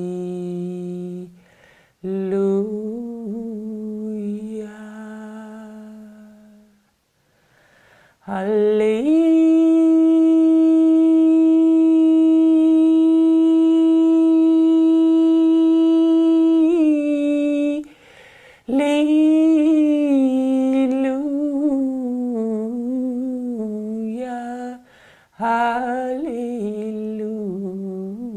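A woman singing solo and unaccompanied in slow, wordless held tones, with short pauses for breath. About eight seconds in she rises to a higher note and holds it steady for about eight seconds, then goes on in lower, gently wavering tones.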